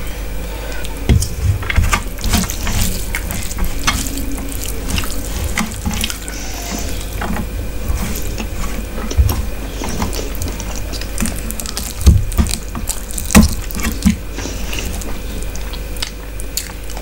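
Close-miked eating sounds: fingers squishing rice into curry gravy on a steel plate, and wet chewing and lip smacks, heard as a run of short sticky clicks with a few heavier thumps.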